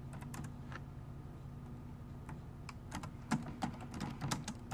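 Computer keyboard typing: a few keystrokes, a pause, then a quicker run of keystrokes from about two seconds in, over a steady low hum.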